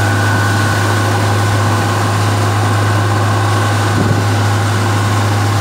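Motorboat engine running at a steady low drone under way, with a constant rush of wind and water over it.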